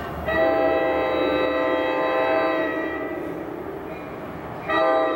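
NJ Transit commuter train's multi-chime horn sounding for a grade crossing: one long blast of about three seconds that fades out, then a short blast starting near the end.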